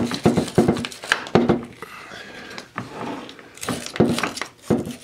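Rag scrubbing the splines of an ATV drive shaft: irregular rubbing strokes with knocks and brief rings of metal, several a second.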